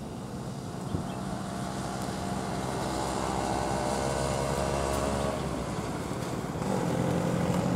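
Heavy diesel engines of a multi-axle goods truck and a state transport bus running past on a hill road, growing steadily louder. A second, louder engine note comes in near the end.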